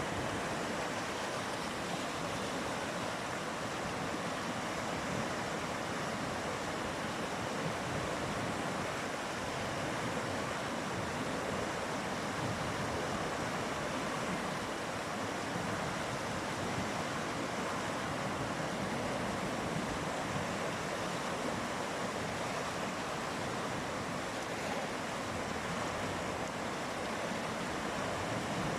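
Mountain river flowing swiftly: a steady, even rush of water with no pauses.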